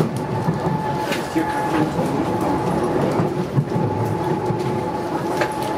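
Docklands Light Railway train running, heard from inside the front car: a steady whine over the rumble of the wheels, with a few sharp clicks as it crosses pointwork.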